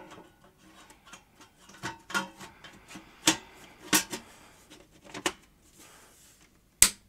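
Irregular clicks and knocks of metal and plastic parts being handled and fitted while a video recorder is reassembled, the loudest a sharp knock near the end.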